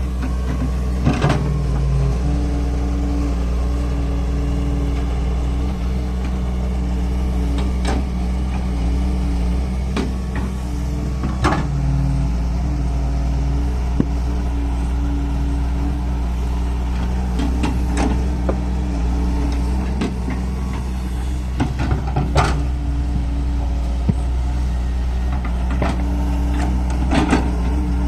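Excavator's diesel engine running steadily under working load, its pitch lines coming and going as it works, with occasional sharp knocks scattered throughout.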